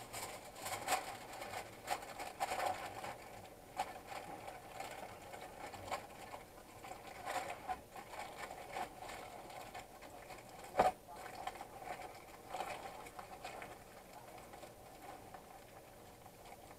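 Aluminium foil and foil tins crinkling and rustling as they are handled and pressed shut by hand, in irregular small crackles, with one sharp knock about eleven seconds in.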